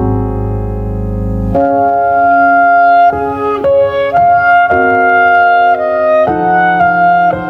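Keyboard music: a low held chord, then from about a second and a half in a slow melody of held, organ-like notes.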